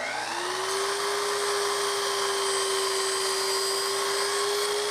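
Festool Kapex sliding compound miter saw spinning up with a rising whine, then running at a steady high whine. This is the first cut through a freshly fitted MDF backer board, to give it a zero-clearance kerf.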